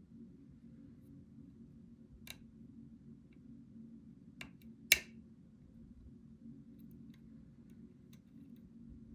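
A few small metallic clicks of lock-picking tools working the pins of a challenge lock: three clicks, the loudest about five seconds in, over a low steady hum.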